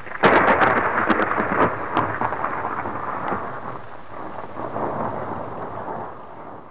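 Thunder sound effect: a sudden crack that rolls on with crackles, slowly fading away over about six seconds.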